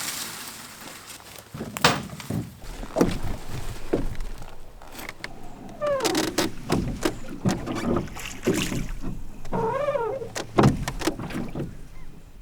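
Knocks and creaks of a small rowboat and its oars as it is boarded and rowed. A wavering pitched sound comes twice, about six and ten seconds in.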